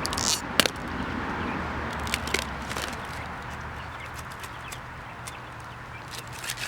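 Hens clucking and calling, with a sharp knock about half a second in and scattered light clicks and rustles.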